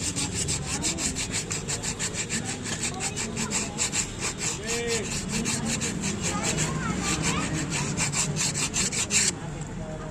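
Motorcycle drum-brake shoe being scrubbed hard back and forth, a fast even rasping of about five strokes a second that stops abruptly near the end. The shoes are being cleaned of the grime and water film that makes the brake noisy and stick.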